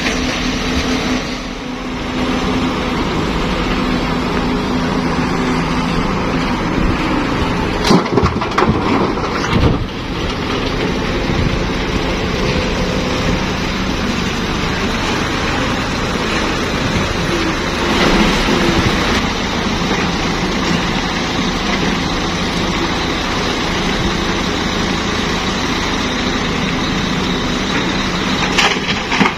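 Heavy diesel machinery, a Cat 320B excavator and dump trucks, running steadily. Several sharp knocks cut through it, the loudest a cluster about eight to ten seconds in.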